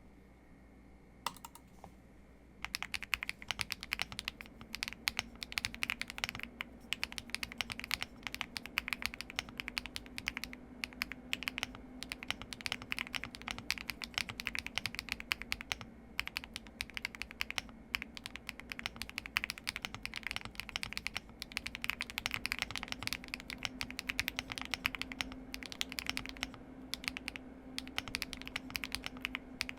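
Typing on a Qwertykeys QK100 mechanical keyboard with stock HMX Gravel switches, Osume Dusk keycaps and all foams installed. A single keystroke about a second in, then a fast, continuous run of keystrokes from about two and a half seconds in, broken by brief pauses.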